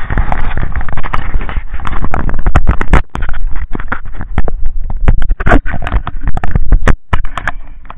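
Wind rumbling on a small action camera's microphone, with a rapid, irregular run of knocks and scrapes as the camera is handled and moved.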